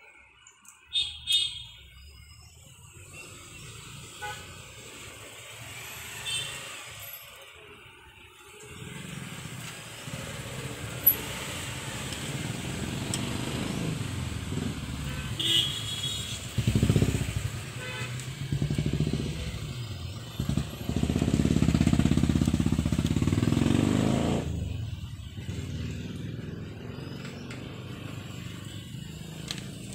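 Motorcycles and other motor traffic passing by, building up from about nine seconds in and loudest a little past two-thirds of the way through, with a couple of short horn toots. A few sharp clicks about a second in.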